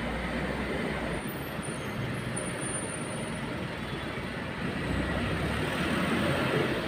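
Steady outdoor background rumble and hiss with no distinct single source, growing a little louder about five seconds in.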